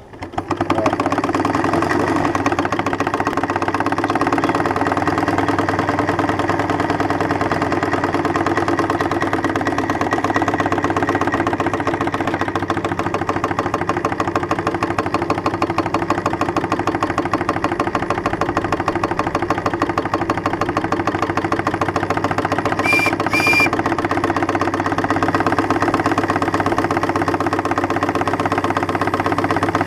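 Live-steam 3-inch scale Case traction engine running under way, a steady sound with a rapid, even beat that comes in suddenly at the start. About three-quarters of the way through come two short high toots.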